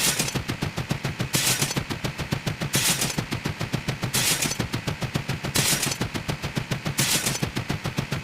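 A rapid, even train of sharp clicks, about eight to ten a second, like machine-gun fire, with a short burst of hiss about every second: a repeating sound effect.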